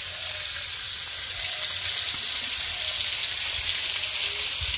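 Cauliflower pieces sizzling as they fry in hot oil in a pan on a wood-fired clay stove, a steady hiss.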